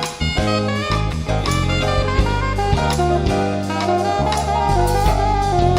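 Instrumental break in a band's song: a lead melody over bass and drums with a steady beat.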